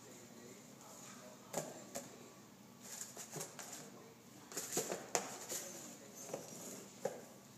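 Cardboard tissue box knocking and scraping on a tile floor as a Bengal cat drags and pushes it with its mouth: a run of irregular taps and scuffs, the loudest cluster a little before and after five seconds in.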